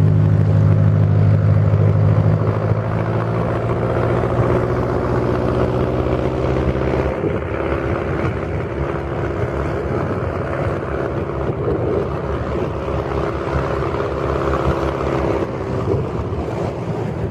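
A motor engine running steadily nearby, loudest in the first few seconds and easing off after about seven seconds, with wind buffeting the microphone.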